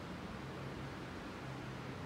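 Steady, even hiss of room tone with a faint low hum underneath.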